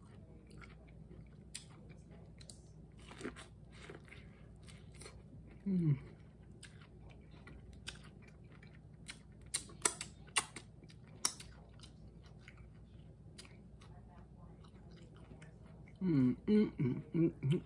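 Close-up mouth sounds of a person eating buttered corn on the cob and seafood: chewing with scattered sharp wet clicks and smacks. A short "mm" hum comes about six seconds in, and a run of voiced "mm" sounds near the end.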